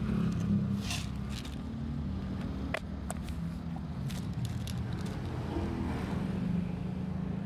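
A motor vehicle engine running steadily close by, a low even hum, with a few light clicks over it.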